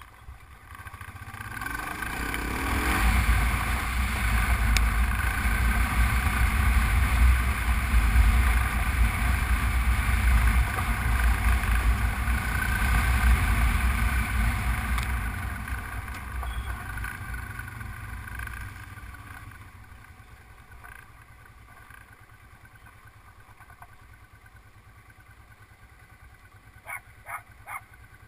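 Honda Transalp motorcycle riding a gravel track, with wind rushing over the camera: it builds over the first few seconds, is loudest for about ten seconds, then eases to a quieter, slower run. Near the end a dog barks three times in quick succession.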